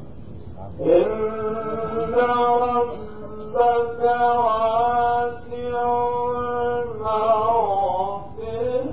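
A male Quran reciter's voice drawing out long, ornamented melodic notes in slow chanted recitation, entering about a second in and pausing briefly twice before sliding through wavering turns near the end. It is an old, dull-toned cassette recording of a live recitation.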